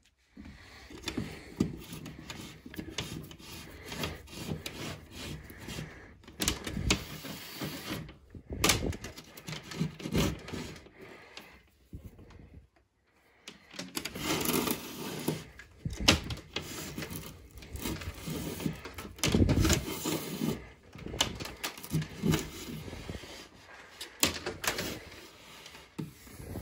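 Hands handling thermostat wire at a wall-mounted thermostat backplate: irregular rustling of the wire with scattered small clicks and taps, pausing briefly twice.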